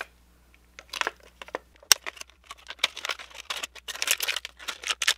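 Clear plastic packaging crinkling and crackling in irregular rustles as hands tear it open and pull the Beyblade parts out, with one sharp click about two seconds in.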